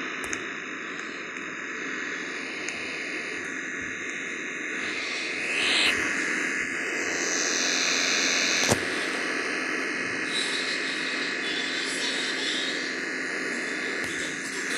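Air conditioner running with a steady whooshing noise that swells slightly a little before the middle, with one sharp click a little past halfway.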